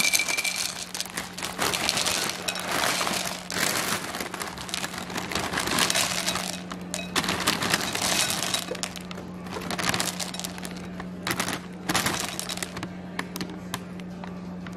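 Cookie Crisp cereal poured from a plastic bag into a glass bowl in several pours, the small hard pieces rattling and clinking against the glass, with the bag crinkling.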